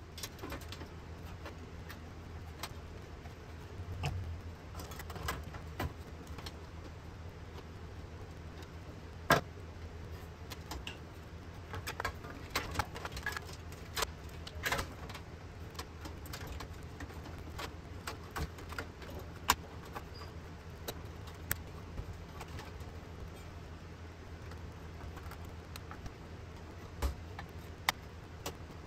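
Irregular metallic clicks and clinks of an HP dc5700 small-form-factor desktop's case and internal parts being fitted back together, the sharpest about nine seconds in. Under them runs the steady hum of an electric cooling fan.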